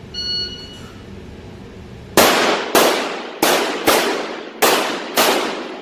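A shot-timer start beep, then six 9mm pistol shots from a Glock 34 fired in three quick pairs about a second apart, each shot ringing off the walls of an indoor range.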